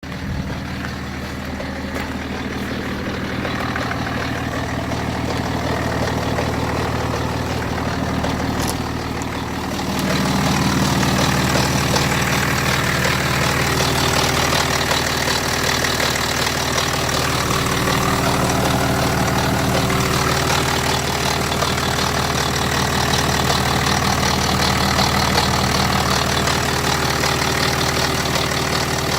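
BMW F11 5 Series Touring running steadily at idle, making a sound its owner calls strange. About ten seconds in, the sound grows louder and fuller.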